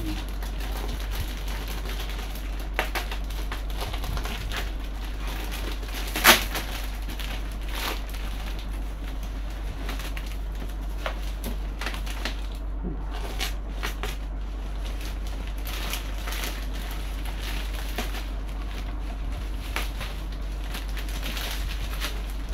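Plastic packaging and bubble wrap crinkling and rustling as they are cut and pulled off a boxed model-plane wing. There are scattered crackles throughout and one sharp, loud snap about six seconds in.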